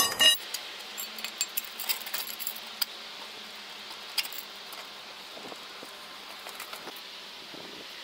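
A small metal hand tool scraping and clinking against stone paving and grit: a run of sharp metallic clicks and scrapes over the first three seconds, one more clink about four seconds in, then fainter ticks.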